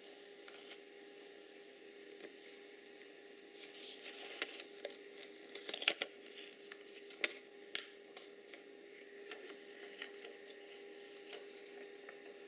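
Paper being handled and torn: soft rustling with many short, sharp crackles and ticks, busiest through the middle, over a steady low hum.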